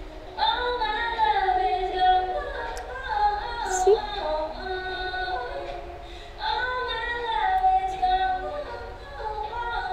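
A young woman singing the chorus of a K-pop song in rehearsal, going over the same hard line twice with long held notes. The second run starts about six and a half seconds in.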